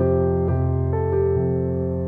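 Background music: a soft piano-like keyboard holding chords, with new notes struck about half a second and a second in.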